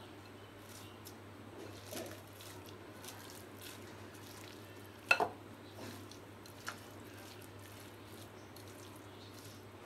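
A plastic spoon stirring shredded cabbage into a thick mayonnaise-based filling in a glass bowl: soft stirring with a few sharp knocks of the spoon on the glass, the loudest a quick double knock about five seconds in. A low steady hum runs underneath.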